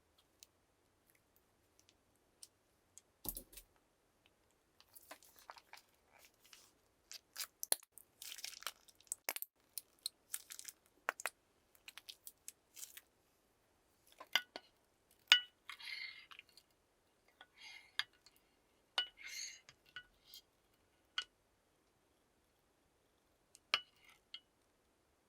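Slime being made and handled: scattered small clicks and crackles, with a few light clinks. They come thickest from about five to thirteen seconds in and again around fifteen to twenty seconds.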